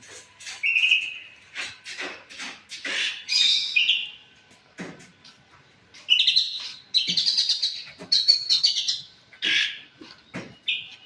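Small birds chirping in a quick run of short, high calls, with sharp clicks in between.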